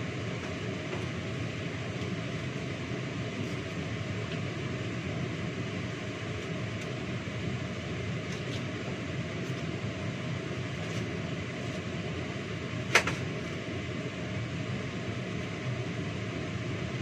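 Steady whirring background noise, like a kitchen fan running, with one sharp clink about thirteen seconds in, the loudest moment, as something knocks against a dish at the sink.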